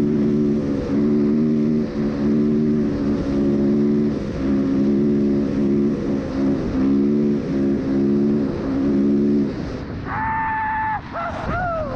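A four-stroke dirt bike engine pulls across sand, with the throttle rolled off and back on about once a second. About ten seconds in, the engine note jumps to a higher, steady pitch for about a second. Near the end it slides up and down.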